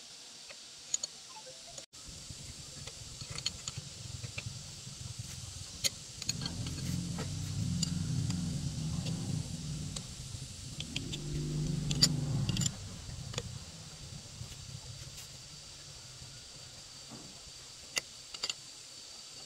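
Hand tools clicking and tapping against the bolts and nuts of a truck's wheel hub, in scattered light metallic clicks. A low rumble swells in the middle and cuts off suddenly about two-thirds of the way through.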